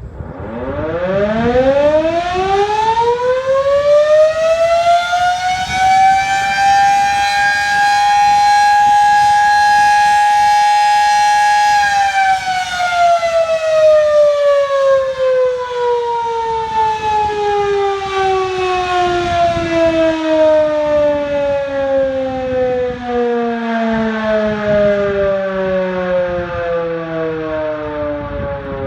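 Outdoor siren sounding the town's noon signal, taken for an old World War II air raid siren: it winds up in pitch over about five seconds, holds a steady high wail for several seconds, then winds down slowly, still falling near the end.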